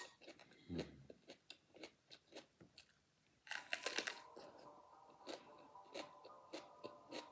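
Close-up eating sounds of a raw mini sweet pepper: crisp wet crunching and chewing with small mouth clicks, and a loud crunchy bite about three and a half seconds in. A brief low thump comes about a second in.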